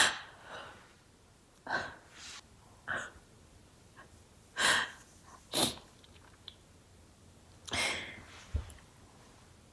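About half a dozen short, sharp sneeze-like nasal bursts, irregularly spaced, with quiet between them.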